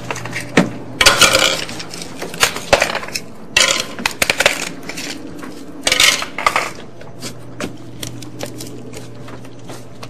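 Dishes and cutlery clattering: a string of sharp clinks and knocks with a few short scraping rushes, thinning out near the end.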